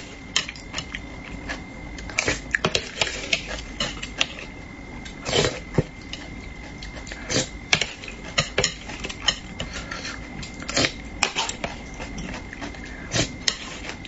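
Metal spoon and chopsticks clinking and scraping against a ceramic plate of braised-fish sauce: many irregular light clicks with a few longer scrapes, over a faint steady high tone.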